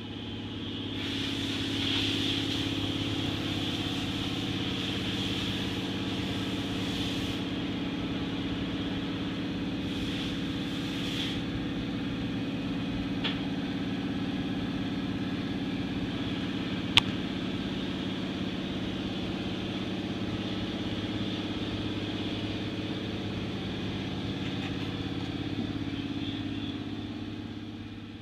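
Steady machine hum at a constant pitch, like a motor or fan running, with a hiss above it and one sharp click about two-thirds of the way through.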